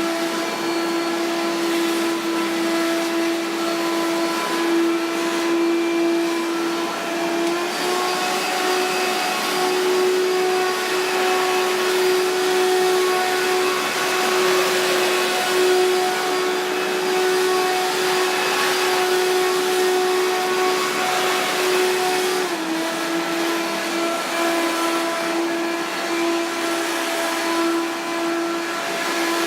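Hoover Power Max vacuum cleaner running steadily with a motor whine. The pitch steps up slightly, with more hiss, about eight seconds in, and drops back to its lower note about twenty-two seconds in.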